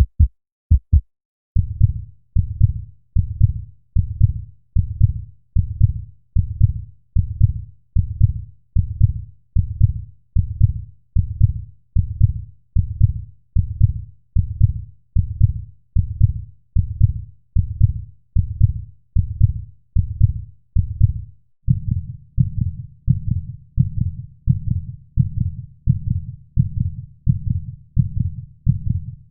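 Heartbeat sound effect: a steady rhythm of low thumps, a little under one and a half a second. About a second and a half in, the short sharp beats give way to longer, fuller ones, and these grow fuller again about 22 seconds in.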